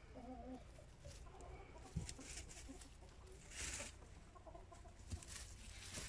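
Faint rustling and crackling of straw bedding as a rabbit chews and shifts about in a wooden hutch, with a short louder rustle about midway. A few faint short calls sound in the background near the start.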